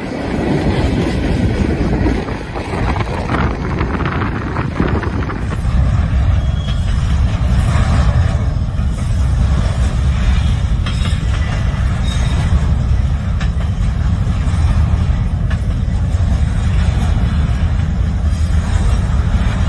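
Double-stack intermodal freight train rolling past: a steady rumble of steel wheels on the rails, with scattered clicks and knocks as the well-car wheels pass over rail joints.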